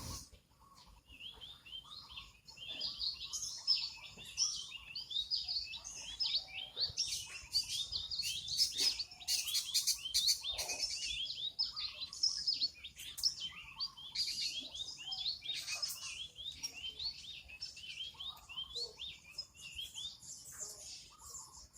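Many small birds chirping continuously, a dense chorus of short, high, quick chirps overlapping one another.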